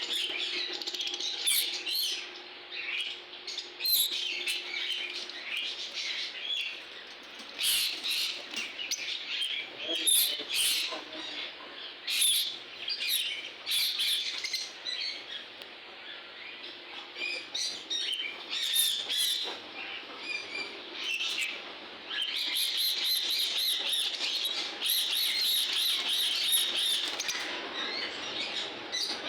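Many caged lovebirds chattering, with rapid high chirps and squawks; the chatter turns continuous and dense in the last several seconds.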